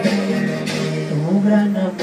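Men singing a romantic Latin ballad live, holding long notes.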